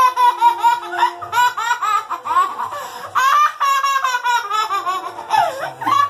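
A young child laughing hard, a long string of quick, high-pitched bursts of giggling and belly laughs.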